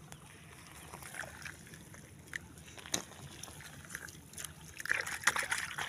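Irrigation water trickling faintly through a wheat field, with a few soft clicks and a short spell of rustling about five seconds in.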